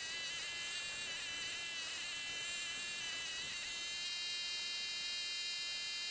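Steady high-pitched insect buzzing, with a slight wavering in pitch but no break.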